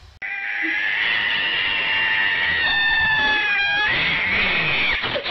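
An angry cat yowling. One long, drawn-out yowl starts suddenly, then a second, shorter yowl comes near the end.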